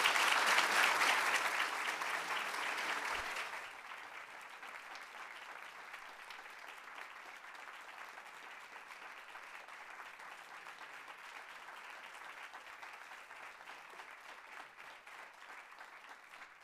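Audience applauding in a lecture hall. The clapping is loud for the first three seconds or so, then drops to lighter applause that carries on and fades near the end.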